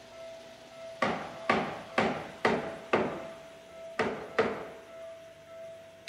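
Train wheels clacking over rail joints at low speed: seven heavy metallic clacks, mostly in pairs about half a second apart, with a longer gap before the last pair.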